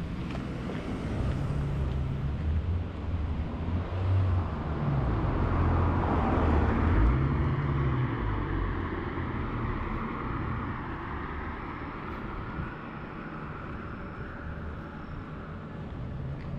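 A car passing close by on a paved street: engine hum and tyre noise grow louder to a peak about seven seconds in, then fade away.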